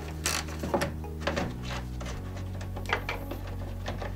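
Scattered light clicks and knocks of hands handling the radiator and its plastic fan shroud, over low background music.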